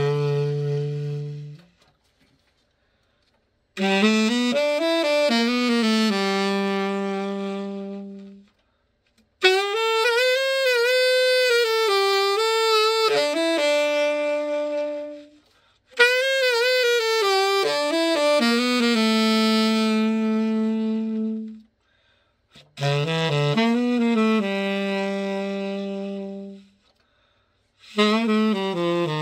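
Selmer Super Action 80 Series II tenor saxophone being play-tested after a full overhaul. It plays slow melodic phrases with vibrato, most ending on a long held low note, with short breathing pauses between them.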